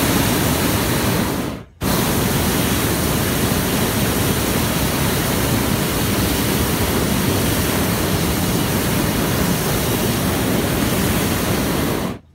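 Hot-air balloon's propane burner firing, a loud steady rush. It stops for a moment about one and a half seconds in, fires again at once, and runs for about ten seconds before cutting off sharply near the end.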